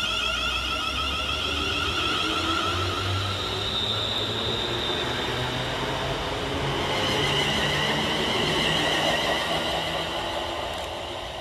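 Class 350 Desiro electric multiple unit pulling away, its traction motors whining and slowly rising in pitch as it accelerates, over the rumble of its wheels on the rails. The sound fades near the end as the train recedes.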